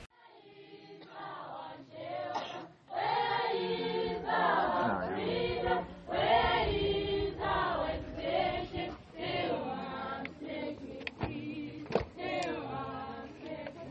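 A group of voices singing together as a choir, several pitched parts overlapping, with a few sharp clicks in the last few seconds.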